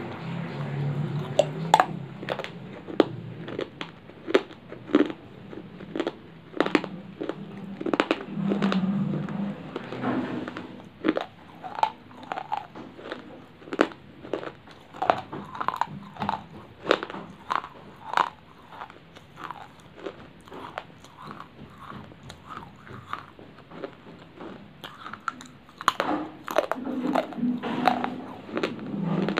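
Baked clay chips being bitten and chewed close to the microphone: sharp, irregular crunches, fewer of them for a few seconds past the middle.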